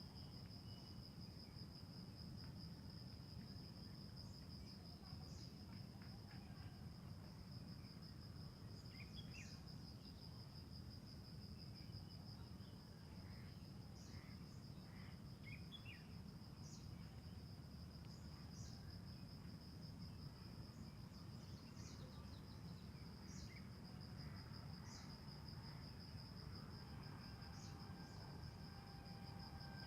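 Faint, steady high-pitched trill of insects in the background, with scattered short bird chirps and a low rumble underneath.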